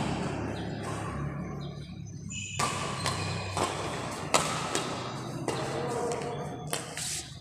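Badminton rally: sharp racket strikes on a shuttlecock, irregularly spaced about a second apart, the strongest about four seconds in, with short squeaks of shoes on the court floor. A steady low hum fills the echoing hall underneath.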